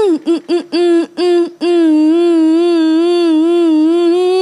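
A woman singing: a quick string of short notes on one pitch, then a long held note with vibrato that stops abruptly near the end.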